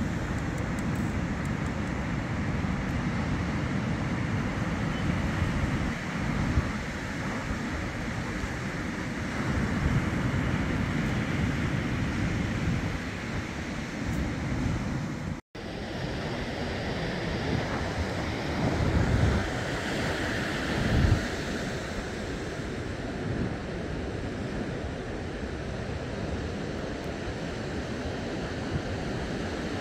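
Sea surf washing on the shore, with wind gusting on the microphone. The sound drops out for an instant about halfway through.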